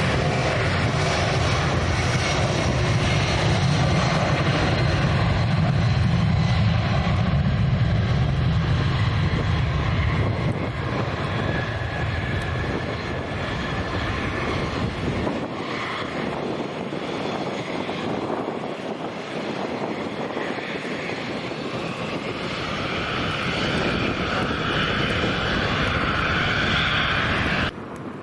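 Airliner engines passing close by: a loud rushing noise with a heavy low rumble for the first ten seconds or so, easing off, then a higher whine building before it cuts off suddenly near the end.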